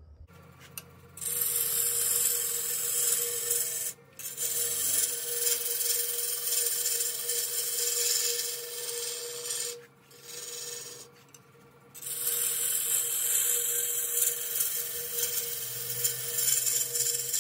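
Spindle gouge cutting a spinning tea tree (melaleuca) branch on a wood lathe: a steady hissing scrape of shavings peeling off, over a steady hum from the lathe. The cutting starts about a second in and drops out briefly about four seconds in, and twice more between ten and twelve seconds, when the gouge comes off the wood.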